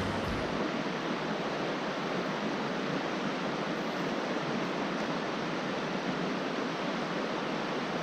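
Steady rush of water flowing in a mountain stream.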